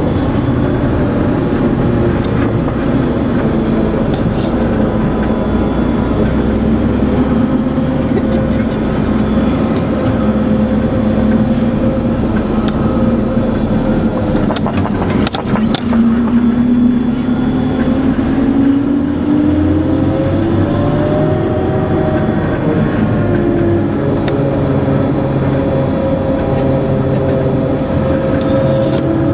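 Cabin noise of an MRAP armoured vehicle on the move: its diesel engine and drivetrain run steadily, their pitch dipping and then climbing again about halfway through as the speed changes. A few sharp knocks or rattles sound about halfway through.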